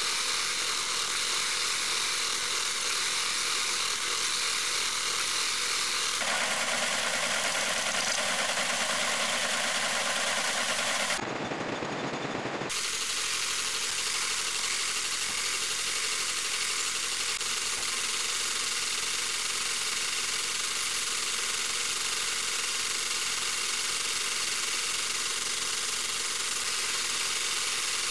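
Metal lathe running, its cutting tool turning a spinning PVC wheel blank, a steady mechanical whir with a high hiss. The sound changes abruptly about 6 seconds in and again around 11 and 13 seconds.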